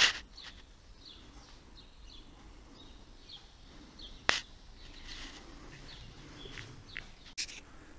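Scattered short bird chirps, with three sharp clicks: one at the start, the loudest, another about four seconds in, and a last one near the end.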